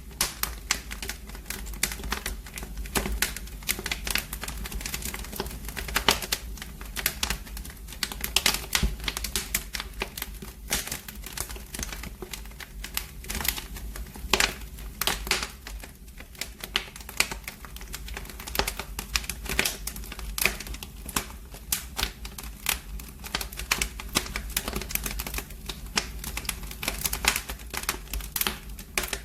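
Wood fire in a fireplace crackling, with dense, irregular pops and snaps over a low steady rumble.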